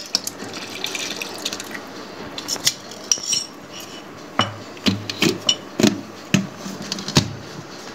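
Chilled milk pouring into a plastic blender jar for about two seconds, then a run of sharp plastic clicks and knocks as the blender lid is handled and pressed on.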